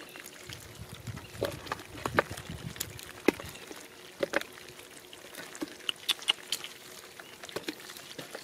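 Small fish flopping on wet mud, making irregular wet slaps and clicks, with hands squelching through the mud.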